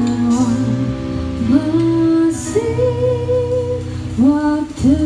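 A woman singing a slow song into a microphone, her held notes sliding between pitches, backed by two guitars and a keyboard.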